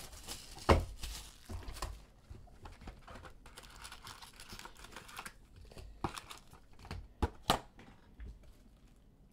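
A Chronicles basketball trading-card pack being torn open, its foil wrapper crinkling, with several sharp taps and clicks from handling the cards.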